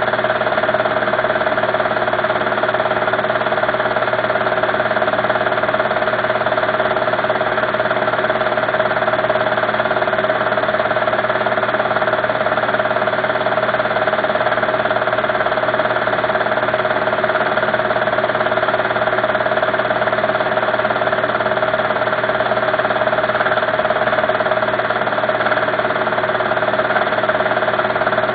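A steady, unchanging motor hum with several fixed tones, running evenly throughout with no change in pitch or level.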